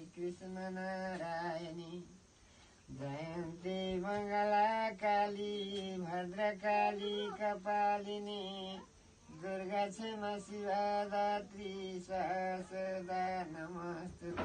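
A man chanting a blessing in long, held sung notes, pausing briefly about two seconds in and again near nine seconds.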